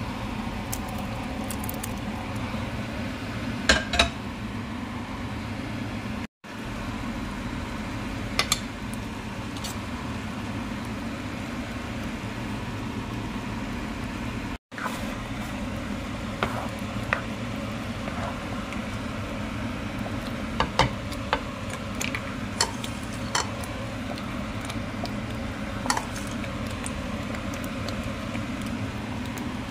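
Butter chicken sauce simmering in a pan under a steady low hum, with scattered clicks and clinks of a spoon against the pan. The sound cuts out briefly twice.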